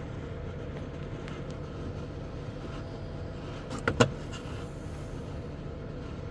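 12 V under-bunk air conditioner running on eco mode: a steady hum from the compressor and fan, with air rushing from the vents. Two sharp clicks come close together about four seconds in.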